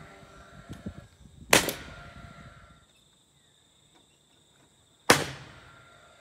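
Nail gun firing twice, about three and a half seconds apart, driving nails through timber battens into the rafters; each shot is a sharp crack that rings off briefly.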